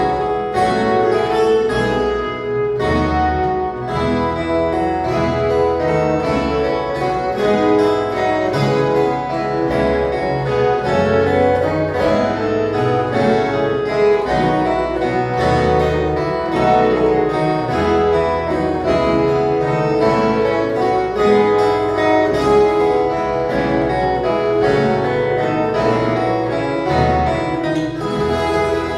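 Ensemble of violas caipiras, the ten-string Brazilian country guitar, playing a piece together: many quickly plucked notes over a moving bass line.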